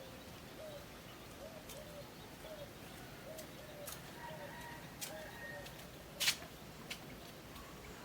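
A bird calling over and over in short, arched notes, about two a second, with a sharp click about six seconds in that is the loudest sound.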